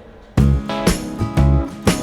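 Background music: after a brief quiet start, a loud, strongly rhythmic passage with heavy bass comes in, with about two strong beats a second.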